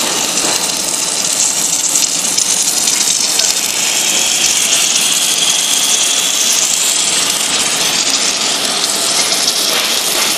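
Steady rushing hiss at a submerged-arc welding station on a column-and-boom manipulator, which is welding under a bed of granular flux with its flux feed and recovery hoses running.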